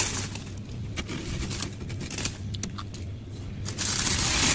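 Soft freezer frost being crunched and scraped: scattered short crisp crunches, then a louder continuous rasping crunch near the end.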